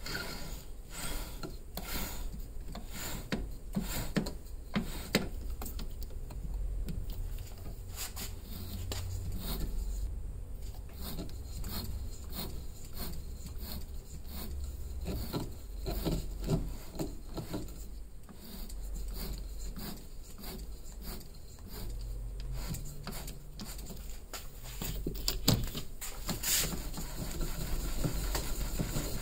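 Small lathe turning a pool cue end in stop-start runs while a tap in the tailstock drill chuck cuts threads into the wood for the joint pin, with many short clicks from the cutting.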